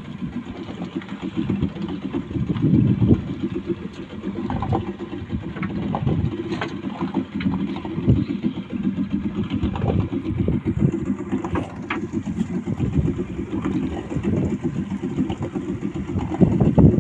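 Fishing boat's engine idling with a low, uneven rumble, and a few faint knocks on top.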